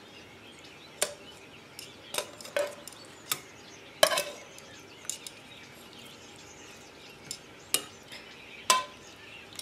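Metal tongs clinking and knocking against a frying pan and a ceramic baking dish as vegetables and pan juices are moved across: about nine scattered sharp clicks, two of them with a short metallic ring.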